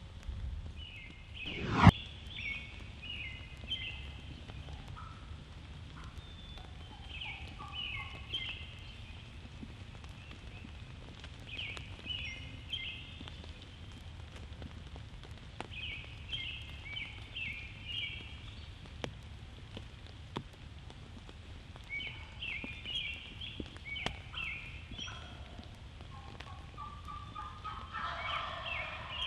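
Wild turkeys gobbling again and again, one rattling gobble about every five seconds, with a louder, closer gobble near the end. A single sharp knock about two seconds in is the loudest sound.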